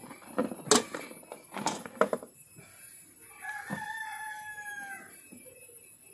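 Sharp metal clinks of a wire grill basket being handled, about one and two seconds in. Then a rooster crows once, a single call of about a second and a half that falls slightly in pitch.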